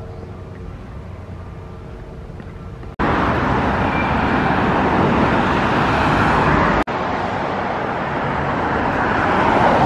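Road traffic: cars driving past close by, an even rush of tyre and engine noise. It comes in suddenly about three seconds in, after a quieter stretch with a faint steady hum, breaks off for a moment near seven seconds, and swells again near the end.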